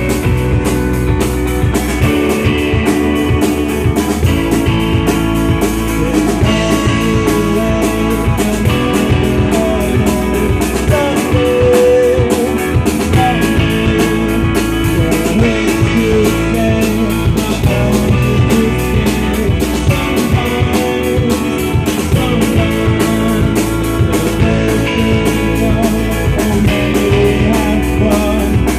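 A rock band jamming: guitars over a steady drum beat, with a lead line that bends in pitch.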